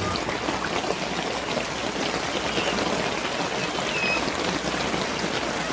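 Steady rain falling and pattering, with two faint short high chirps in the middle.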